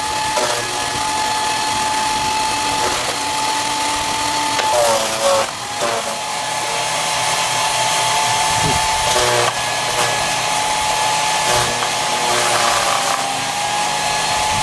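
14-amp electric chipper shredder running with a steady high whine. Its motor pitch sags about five seconds in and again near ten seconds as tree limbs are fed in and chewed up, with short cracks of wood.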